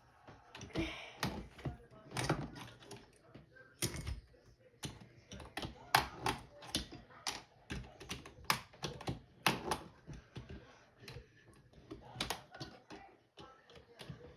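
Irregular plastic clicks and taps from a computer keyboard being worked on by hand, its keycaps off, at about two or three clicks a second with uneven spacing.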